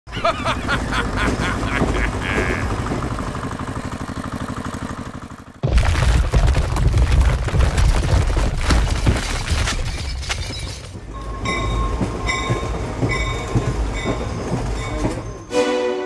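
A run of sound effects: a rhythmic, train-like pattern, then a sudden loud rumble with crackling as earth and rocks slide down a bank, then short tones repeating every half second or so.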